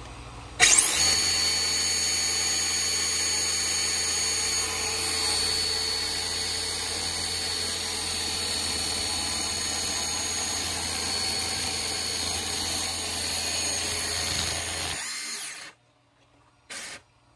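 Brushless electric motor of a 1/10-scale Tamiya Honda Civic RC car (FF-03 chassis) held at speed in a tyre-smoking burnout: a steady high whine with hiss. It starts suddenly about a second in and cuts off near the end, followed by a brief short burst.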